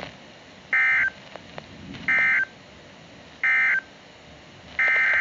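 Emergency Alert System digital data bursts: three short, loud screeching tone bursts about a second and a half apart, the end-of-message signal of a warning, then a longer burst of the same tones starting near the end, the header of the next alert.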